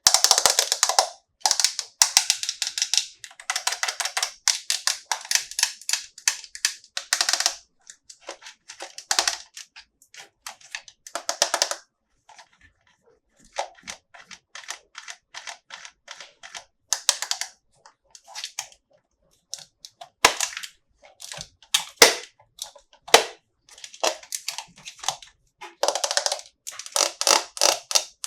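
Plastic toy packaging crinkling and crackling as it is handled and opened, in busy runs of fast clicks broken by short pauses. A few sharp snaps stand out about two-thirds of the way through.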